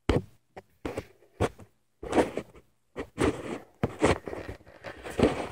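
Handling noise on the camera: fingers rubbing, scraping and knocking against it in an irregular string of short rustles, denser toward the end.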